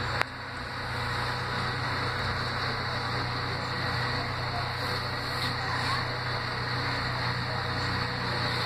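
Steady hiss and low hum of background noise, with a single sharp click just after the start.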